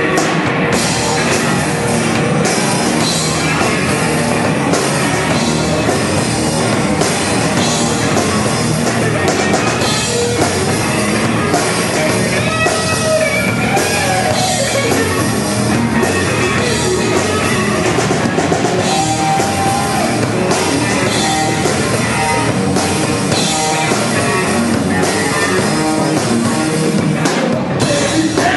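Live rock band playing loudly: electric guitar over bass guitar and drum kit.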